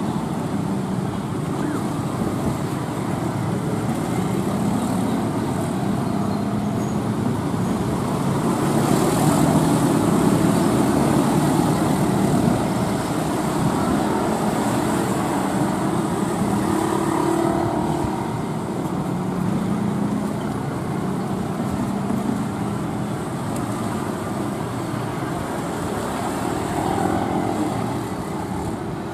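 Diesel locomotive engine running steadily as a passenger train pulls slowly into the station.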